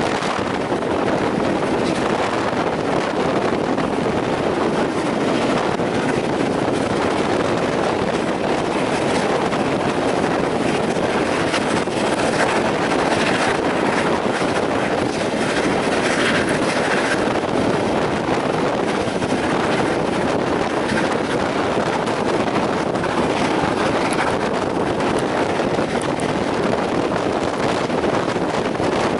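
Steam-hauled passenger train running steadily at speed, heard from an open coach window, with wind buffeting the microphone over the rumble of the coaches on the rails.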